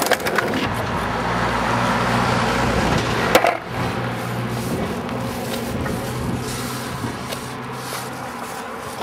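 Skateboard wheels rolling over rough asphalt, with one sharp clack about three and a half seconds in. After it, a quieter steady rumble with a low hum carries on.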